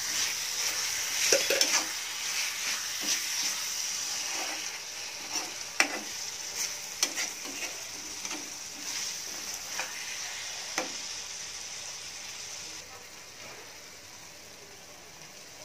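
Onion-tomato masala sizzling in a kadhai while a metal spatula stirs it, scraping and clinking against the pan every second or two. Near the end the stirring stops and the sizzle gets quieter.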